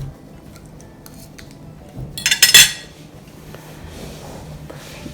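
Metal cutlery clinking against a plate, a quick run of sharp clinks about two seconds in, as cheesecake is eaten with a fork.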